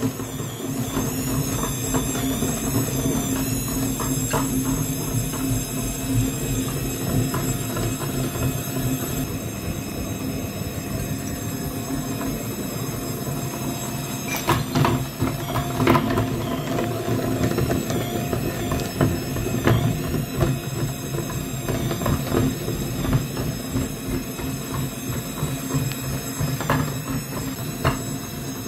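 Cast-iron meat grinder with its wheel spinning, crushing sticks of chalk: a steady mechanical running with a low rumble, broken by scattered sharp cracks and clicks as the sticks snap and grind.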